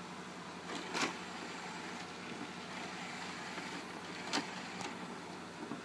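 RCA RS2664's five-disc CD changer mechanism cycling from one disc slot to the next: a steady motor whir with a few sharp clicks, about a second in and again in the second half. The changer is searching its slots and reading no disc, a fault the owner puts down to a dirty CD player.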